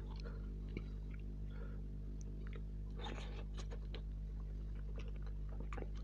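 Close-up chewing and mouth sounds of someone eating tandoori chicken: scattered wet clicks and smacks over a steady low hum.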